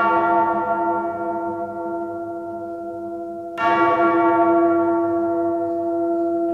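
A bell tolling: it is already ringing from a stroke just before, and is struck again about three and a half seconds in, each stroke ringing on and slowly fading.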